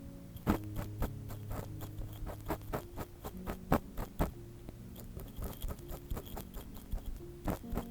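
Ear pick scraping and clicking at close range on a binaural microphone, simulating ear cleaning: irregular small scratches and taps, with a low steady drone underneath.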